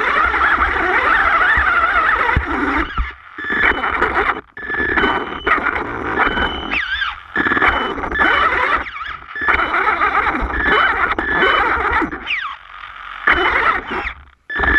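HPI Savage Flux RC truck's brushless electric motor and gears whining in throttle bursts, with several short pauses and a few brief rising pitches, while its tyres and chassis scrape and knock over stones.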